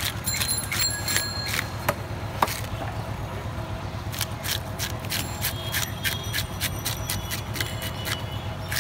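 A wooden scaling board scraped quickly along a catla carp's flank in repeated short strokes, rasping the scales off, over a steady low hum.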